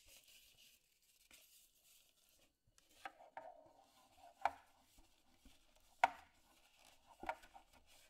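Paper towel rubbing inside a metal loaf tin, then about five sharp metallic knocks and clanks as the tin is handled and tipped against the counter, the loudest about six seconds in.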